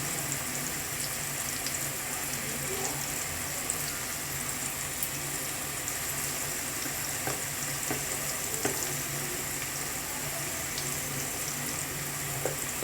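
Potato and carrot pieces sizzling steadily in oil in a kadai, with a few short clicks of a spatula against the pan.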